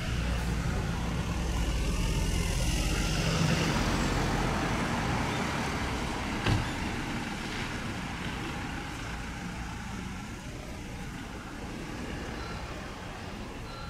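Small bus's engine running as it drives through the station forecourt, a strong low rumble for the first few seconds that then fades away, over general traffic noise. One short knock about six and a half seconds in.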